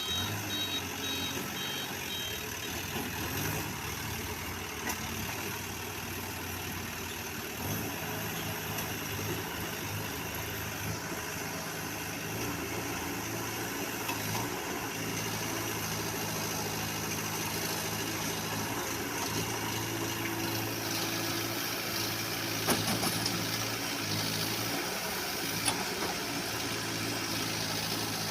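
Backhoe loader's diesel engine running steadily, its pitch shifting a few times as it works. A reversing alarm beeps for the first couple of seconds, and a few sharp knocks come later.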